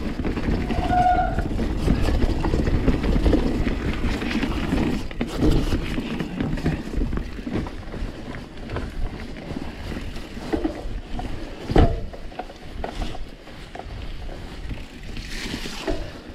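Santa Cruz Hightower 29er mountain bike being ridden over rough, muddy off-trail ground: steady rumbling riding noise with scattered rattles and knocks from the bike, heaviest in the first few seconds. There is a brief squeak about a second in, and one sharp loud knock near the end.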